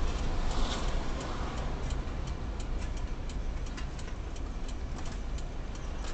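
Car turn-signal indicator ticking evenly, about three ticks a second, over the low engine and road rumble inside the car's cabin.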